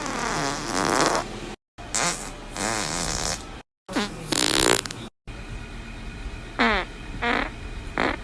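A run of human farts spliced together from separate clips, with abrupt cuts between them. The first five seconds hold several long, wavering ones; three short, squeaky ones with falling pitch follow near the end.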